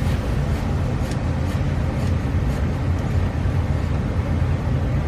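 Vacuum brake bleeder running with a steady low drone and a light hiss, drawing brake fluid and air out of a motorcycle's rear brake line.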